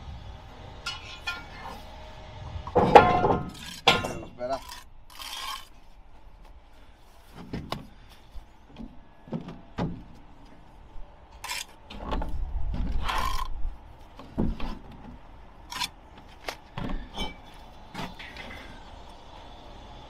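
Bricklaying by hand: a steel trowel scraping and tapping and bricks being set and knocked down into mortar, heard as scattered short clinks and knocks, with a louder cluster about three seconds in.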